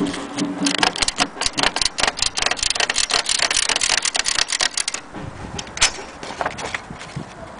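Vintage Erika portable typewriter being typed on: a fast, dense run of key strikes for about five seconds, then slower, scattered strikes.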